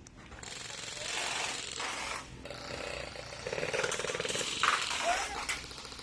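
Airsoft electric gun firing a rapid full-auto burst, about three and a half seconds in and lasting just over a second, over a steady hiss.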